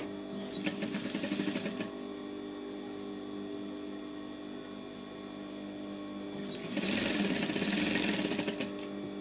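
Industrial lockstitch sewing machine stitching in two runs of fast, even needle strokes: a short run about half a second in, and a longer, louder run near the end.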